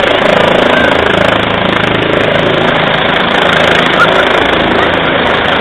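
Trauma helicopter climbing away just after takeoff: loud, steady rotor and turbine noise.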